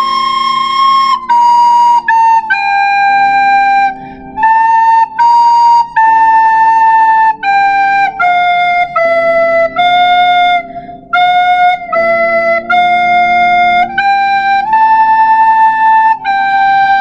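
Plastic soprano recorder playing a slow, legato melody of held notes that move by small steps, with brief breaths between phrases.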